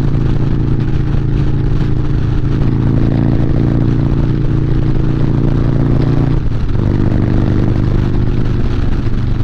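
Harley-Davidson Street Bob's Stage 2 Milwaukee-Eight 114 V-twin running steadily at highway speed, heard from the rider's seat; its note drops to a lower pitch about six seconds in.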